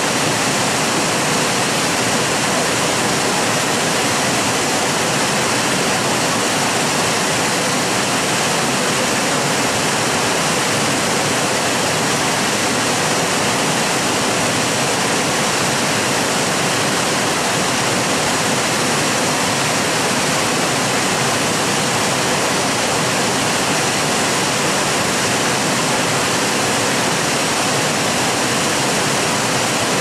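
A waterfall pouring down a rock chute into a rocky pool: a loud, steady rush of falling water.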